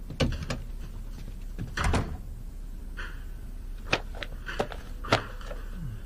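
A door being shut: a knock near the start and a heavier thud about two seconds in, followed by a few sharp taps and rustles of a magazine being handled.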